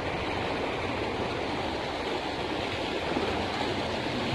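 Swift river water rushing steadily, running high with heavy flow after recent flooding.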